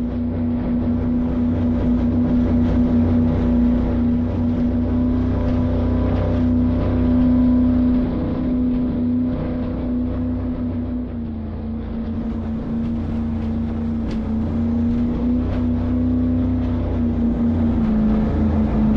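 A motor running steadily with a strong hum over a rush of noise. The hum drops slightly in pitch about eleven seconds in and again near the end.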